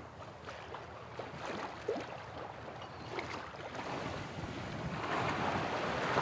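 Water splashing and washing along a sailboat's hull as it sails in light wind, with a wave of wash swelling louder about five seconds in.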